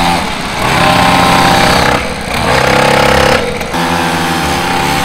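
Small engines of a kids' quad bike and a mini dirt bike running. The engine note holds steady, then shifts up or down to a new pitch, with brief dips about two seconds in and again about three and a half seconds in.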